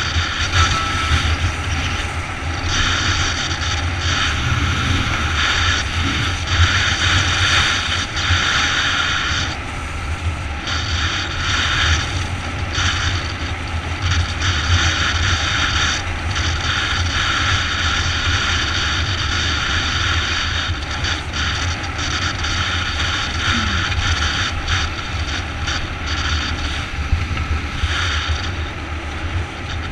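Motorbike riding at steady cruising speed: the engine's low, even drone under wind rushing over the camera's microphone.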